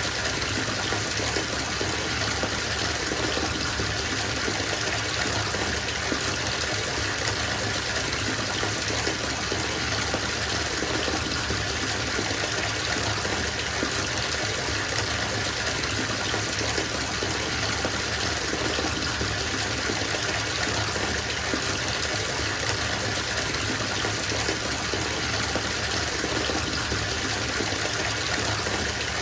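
Water running steadily from a bathtub tap into a filling tub, an even rushing splash with no change throughout.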